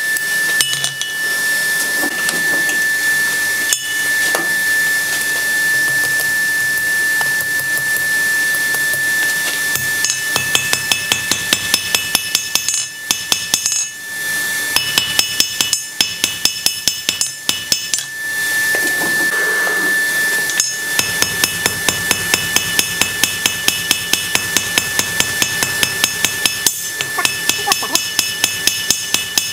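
Blacksmith's hand hammer striking red-hot steel bar on an anvil, forging the split tines of a toasting fork. It starts with a few scattered blows, then about a third of the way in settles into runs of quick, even blows, about four a second, with short pauses between runs. A steady high tone sounds under the hammering for the first two-thirds.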